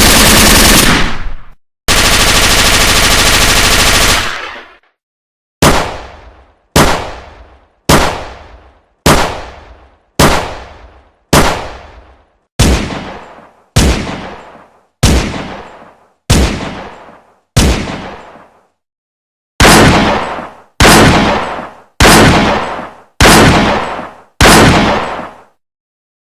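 Gunfire sound effects: a sustained burst of automatic fire cutting off about a second in, a second long automatic burst, then single gunshots at about one a second, each with a fading echo tail. About a dozen shots, a short pause, then six more.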